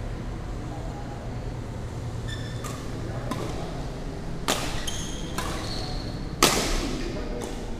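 Badminton rally: a racket strikes the shuttlecock about once a second, with sharp hits, the loudest about six and a half seconds in, mixed with high squeaks of players' shoes on the court mat.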